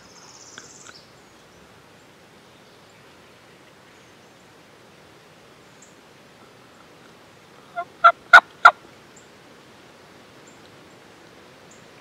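Turkey yelps: a short series of four loud notes about a third of a second apart, about eight seconds in, the first one softer.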